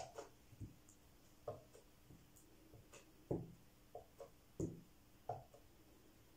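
A homemade cork stamp being dabbed on an ink pad and pressed onto paper on a table: a string of soft, irregular taps, about ten in all.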